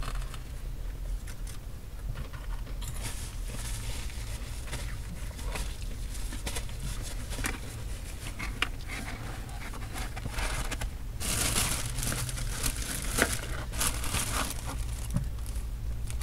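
Paper food wrapper crinkling and rustling as it is handled, with scattered crisp clicks; it gets busier and louder about two-thirds of the way in. A steady low hum runs underneath.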